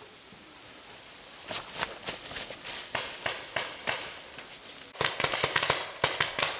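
Paintball markers firing: a string of sharp pops, then a faster run of them near the end.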